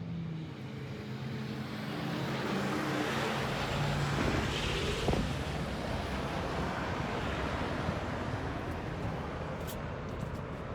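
A vehicle driving past. Its noise swells to a peak about four to five seconds in, then settles into a steady rush.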